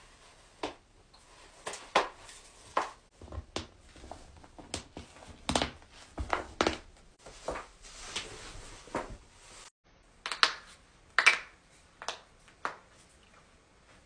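A person cracking their own joints by hand: a long irregular run of sharp pops and cracks from the knuckles and other joints, over a dozen in all.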